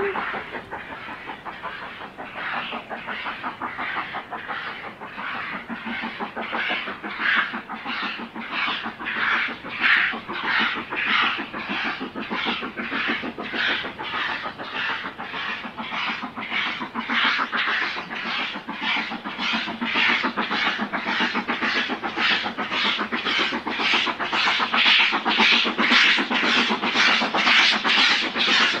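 Steam locomotive working hard as it approaches, its exhaust beating in a steady rhythm of about two beats a second and growing louder toward the end.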